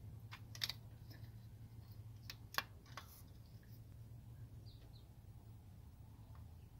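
A few sharp clicks and light taps, the two loudest about half a second and two and a half seconds in, from a broken timing chain guide being handled against the chain and engine front of a 2005 Ford F-150 5.4 V8 with the timing cover off. A steady low hum runs underneath.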